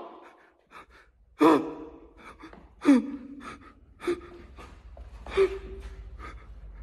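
A man's short, sharp vocal gasps, four of them about a second and a half apart, each dropping in pitch, with small clicks and handling rumble from the phone in between.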